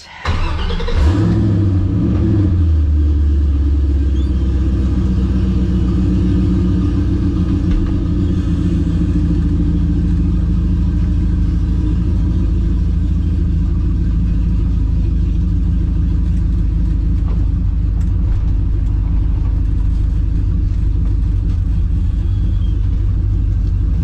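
Car engine cranking and catching, flaring up in revs for a second or two, then settling into a steady idle, heard from inside the cabin.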